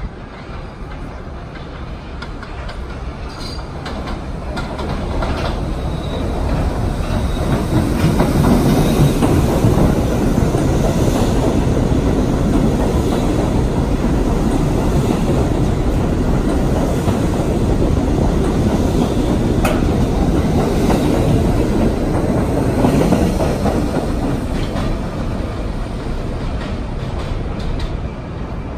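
R62A subway train running past an elevated station platform, its rail noise building over the first several seconds, staying loud through the middle, then easing off near the end.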